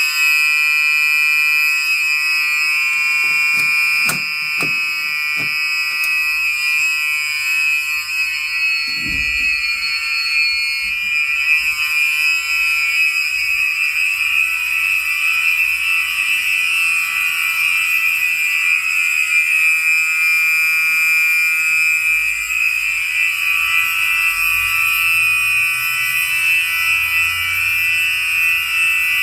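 Several 1990s Gentex SHG fire alarm horn/strobes sounding together on continuous, a steady, loud, buzzy horn tone made of several pitches at once. One of the higher tones drops out about ten seconds in. A few light knocks come a few seconds in, and a low thump about nine seconds in.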